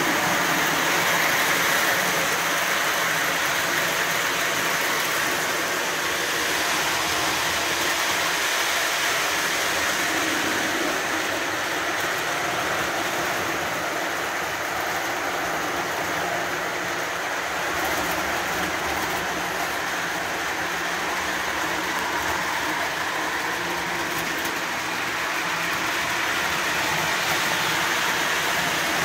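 Lionel O-gauge Santa Fe ALCO FA diesel train running on three-rail track, a steady whir of its electric motor and rumble of wheels over the rails. It swells slightly as the train comes near.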